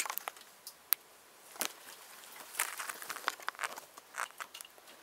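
Footsteps scuffing over a rocky cave floor: a handful of short, irregular scrapes and light knocks.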